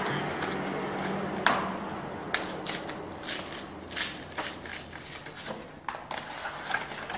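A sheet of 150-grit sandpaper being folded and creased by hand, its stiff backing crackling and scraping in irregular snaps.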